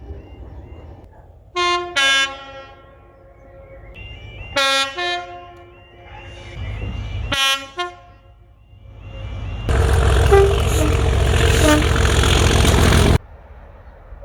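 Train horn sounding three short chord blasts of several tones each. Then a loud rushing noise lasts about three and a half seconds and cuts off suddenly.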